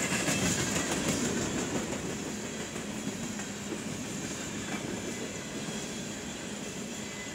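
Freight train's open-top hopper cars rolling past, their steel wheels clicking over the rail joints; loudest in the first couple of seconds, then a steady running noise.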